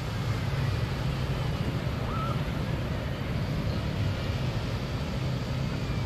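Steady open-beach noise: small waves breaking and washing up the sand, with a low wind rumble on the microphone.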